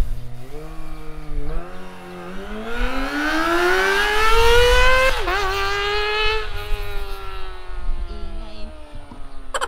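Kawasaki ZX-25R's 250 cc inline-four, fitted with an Akrapovic full exhaust system, revving hard as the bike passes by in first to second gear. Its pitch climbs for the first five seconds, breaks briefly, then falls away steadily as the bike recedes.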